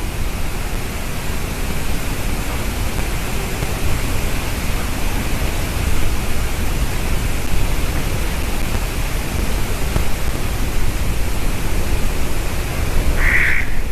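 Steady, loud rushing noise, with a single short bird call near the end.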